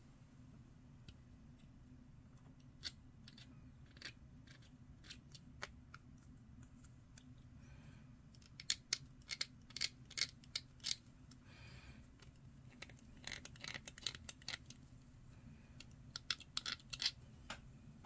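Hobby knife blade scraping and trimming the edge of a small plastic model part: short, sharp scratchy strokes, a few scattered at first, then in quick runs about nine to eleven seconds in and again from about thirteen to seventeen seconds in.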